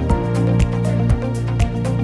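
Background music with a steady beat about twice a second over sustained tones.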